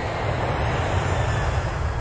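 Steady low engine rumble with a rushing hiss of wind and water, as from a boat under way at sea.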